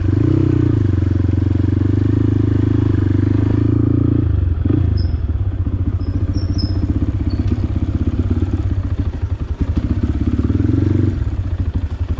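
Motorcycle engine running at steady throttle, then easing off about four seconds in to a slower, pulsing beat, picking up again briefly before throttling back near the end.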